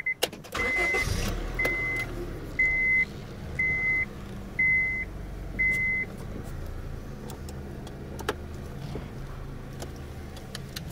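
A Honda Civic's dashboard warning chime beeping about once a second, six times, then stopping, over the steady low idle of the 2005 Civic LX's four-cylinder engine, heard from inside the cabin.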